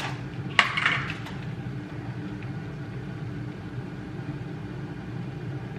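Steady low hum of a running oven baking, with one brief clatter about half a second in.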